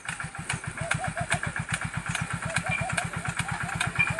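A small engine running steadily with a fast, even putter of about ten beats a second.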